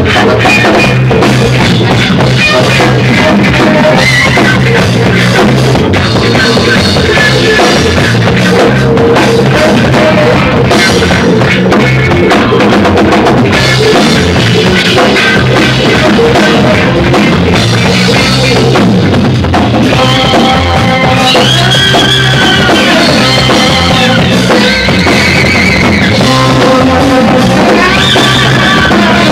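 Live rock band playing loud: drum kit with a steady bass-drum beat, electric guitar and saxophone, with a melodic lead line coming in during the second half.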